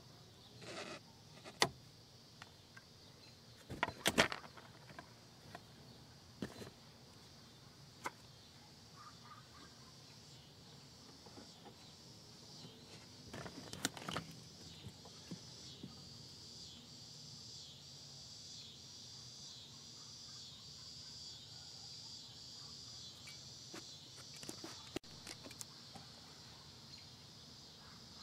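Scattered sharp clicks and clacks of hand tools and wiring being handled at an opened car door, loudest as a brief cluster about four seconds in and again around fourteen seconds. Behind them, a steady high chirring of insects that grows louder in the second half.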